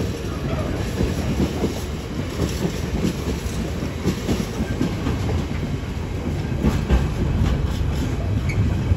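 Freight train of container wagons rolling through the station, a steady low rumble with scattered clicks of wheels over rail joints.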